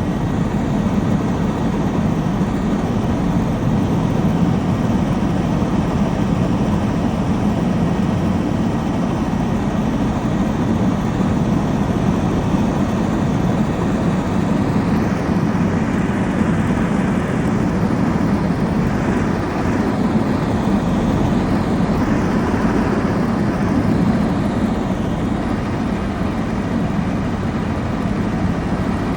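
Helicopter in flight: a steady, loud rush of engine and rotor noise.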